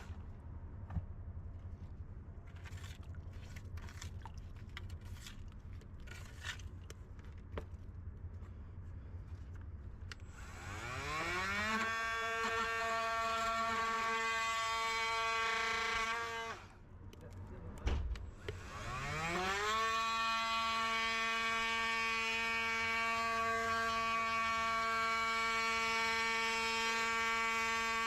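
A small electric motor winds up with a rising whine to a steady high hum, runs for about five seconds and stops. After a thump it winds up again and runs steadily. Before it, a low rumble with scattered clicks.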